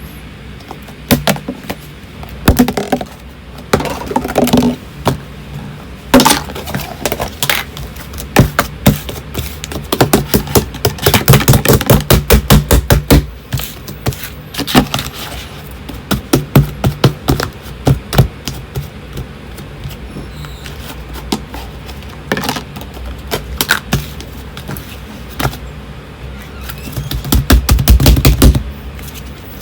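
Fluffy slime being squished and pressed by hand, giving irregular runs of sharp crackling pops and clicks as trapped air bursts. The pops come thickest in two fast runs, one near the middle and one near the end.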